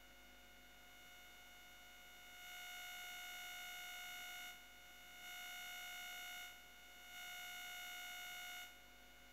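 Three faint, long, steady beeping tones, the first about two seconds and the next two shorter, with short gaps between, over a faint steady hum. The rushing river is not heard.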